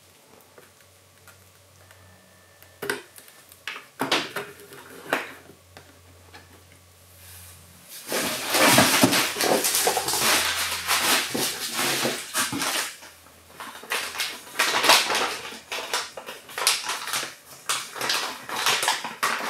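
A few light clacks of a clear plastic display case being handled and set down. Then, from about eight seconds in, loud continuous rustling and crackling as hands rummage around inside a shipping box.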